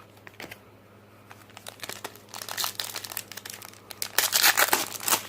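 A trading card pack wrapper being torn open and crinkled by hand: a few faint crackles at first, then a dense crinkling and ripping that grows louder toward the end.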